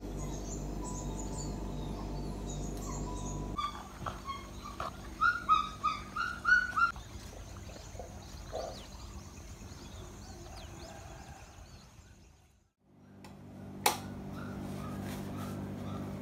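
Birds chirping and calling, one giving a quick run of rising whistled notes for a few seconds, over a steady low hum at first. Later a single sharp click sounds over a steady hum.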